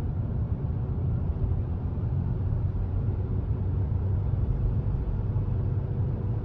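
Steady low rumbling noise with an even hiss above it, unchanging throughout.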